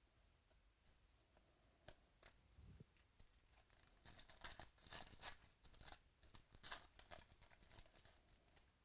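A foil trading-card pack (2018 Donruss Baseball) being torn open, with crinkling wrapper from about four seconds in until near the end. Before it come a few light clicks of cards being handled.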